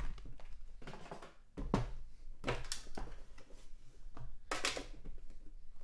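Hands handling and opening a cardboard trading-card box: a handful of short rustles and scrapes of cardboard and packaging.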